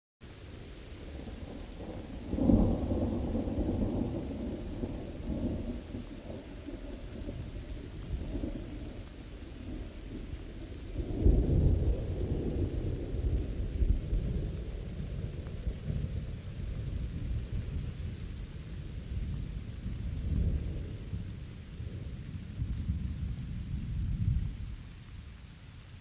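Thunder rolling over steady rain. Two loud peals of deep rumble come about two and a half and about eleven seconds in, each rolling on for several seconds, with weaker rumbles later.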